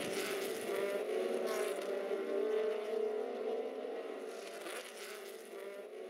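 Race-car engine sound from a title sequence: a steady, multi-toned engine note that slowly fades away.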